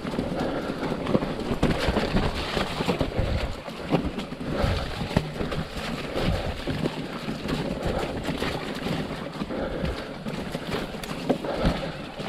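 Mountain bike riding downhill over a wet, rocky trail: tyres rumbling and splashing over stones and running water, with frequent sharp knocks and rattles from the bike as it hits rocks.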